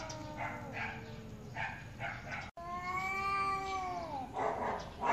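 Two orange tabby cats yowling at each other in a standoff: long, drawn-out, wavering threat howls, the second one sliding down in pitch as it ends, with brief harsh sounds in between. The sound cuts out for an instant about two and a half seconds in.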